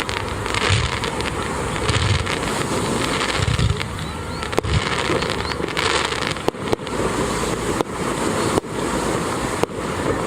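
Fireworks display with shells bursting continuously. Deep booms dominate the first half; sharp cracks come about once a second in the second half.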